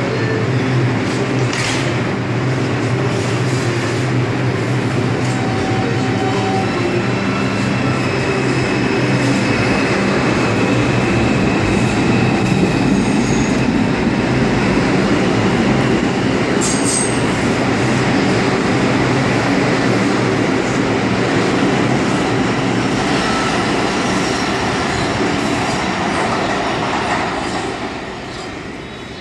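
R142 subway train pulling out of the station and running past, with steady motor and wheel noise. The sound falls away near the end as the last car leaves.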